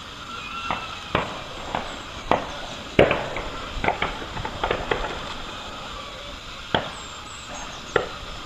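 About ten sharp bangs at irregular intervals, the loudest about three seconds in. They sound a bit like gunshots but are taken by the uploader for a nearby tractor backfiring.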